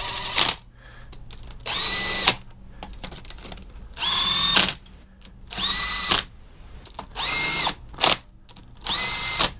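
Cordless power driver running bolts into a Suzuki GS650G engine in about seven short bursts, each a motor whine that climbs quickly and then holds. The bolts are only being run in snug, not torqued.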